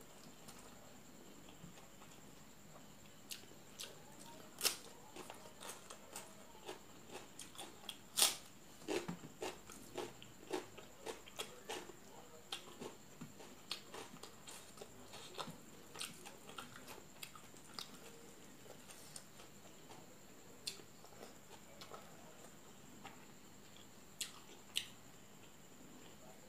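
Close-up eating sounds of a meal of rice and fish curry eaten by hand: chewing and lip-smacking with scattered wet clicks, a few louder ones about 5 and 8 seconds in and a busy stretch just after.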